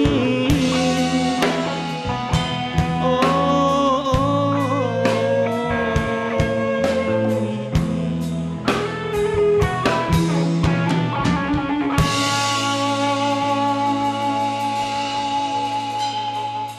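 Live rock band playing the closing instrumental passage of a song on electric guitars, bass, drum kit and keyboard, with regular drum hits. About twelve seconds in the band settles on a long held final chord, which cuts off sharply at the end.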